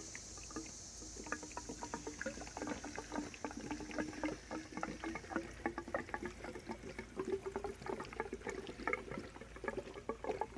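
Fuel mix glugging from a gallon gas can into a Poulan chainsaw's fuel tank: a quick, irregular gurgle whose pitch rises slowly as the tank fills.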